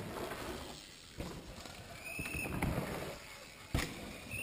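Downhill mountain bike going past on a dirt trail: tyres crunching and the bike rattling, with a sharp knock near the end. A short high squeal is heard twice, about two seconds in and again at the very end.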